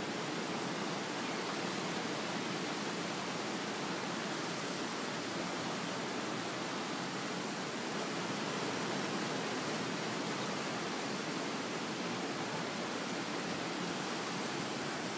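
Ocean surf breaking along a beach, heard from a distance as a steady, even rush of noise.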